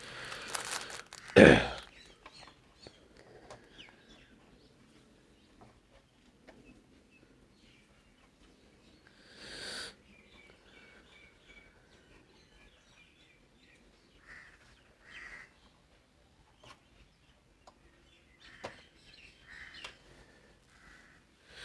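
Faint calls of birds and chickens, short chirps and clucks scattered through otherwise quiet room tone. A single loud knock about a second and a half in, and a brief rustle near the middle.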